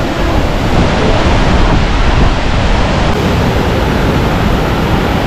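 Steady rush of a waterfall pouring into a rocky pool and white-water rapids, with wind buffeting the microphone.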